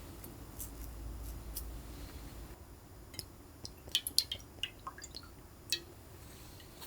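Scattered small clicks and taps, like things being handled, over a low steady rumble that fades after about two and a half seconds.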